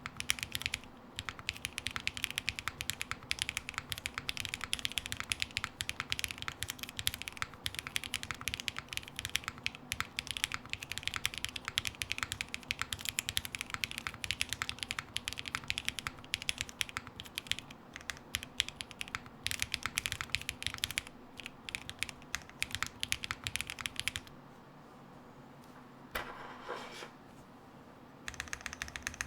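Fast, continuous typing on a custom mechanical keyboard with lubed Zaku switches, a carbon fiber plate and GMK keycaps. The keystrokes stop about 24 seconds in, and one short sound comes in the pause. Typing resumes just before the end.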